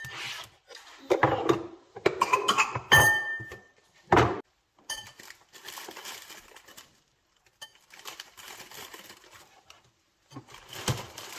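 Knocks and clatters of household objects being handled, several hits leaving a short metallic or crockery ring, with quieter rustling in between.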